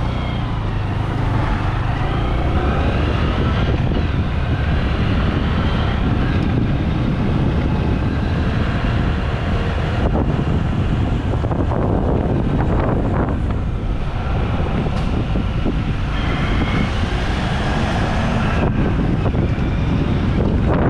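Steady, heavy wind rumble buffeting the built-in microphone of a helmet-mounted GoPro Hero 8 on a moving motorcycle, with the motorcycle's engine and road noise underneath.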